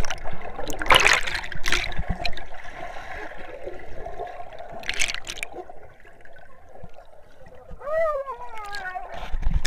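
Pool water heard from underwater: a muffled sloshing and bubbling, with sudden splashes about a second in and again about five seconds in. Near the end a muffled falling cry comes through the water.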